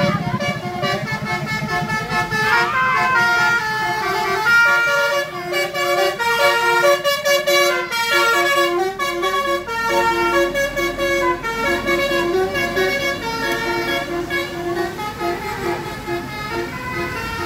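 Indonesian 'telolet' bus horn, a multi-tone horn playing a quick tune of short stepped notes, several pitches sounding together.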